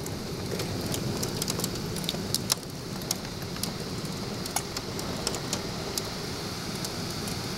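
Heavy thunderstorm rain pouring steadily, with many sharp ticks of drops striking close by.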